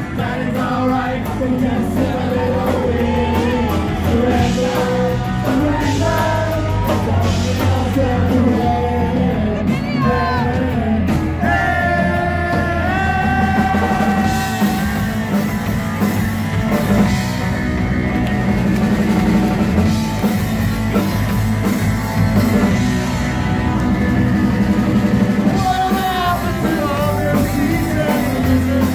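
Live rock band playing: drum kit, electric guitar and bass guitar, with singing over them.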